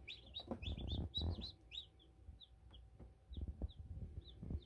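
Day-old chicks peeping: a quick flurry of short, high chirps in the first second or two, then single peeps about twice a second. Faint low knocks sound underneath.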